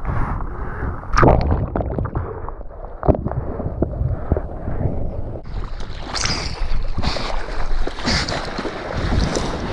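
Ocean whitewash rushing over a surfboard, muffled at first while foam washes over the camera, then brighter splashing from about five and a half seconds in as hands paddle through the water.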